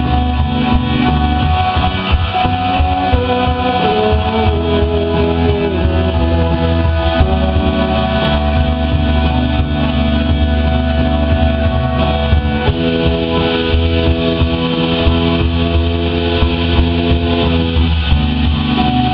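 Live rock band of electric guitar, bass, drums and synthesizer playing loud held chords, with a chord change about two-thirds of the way through and another near the end.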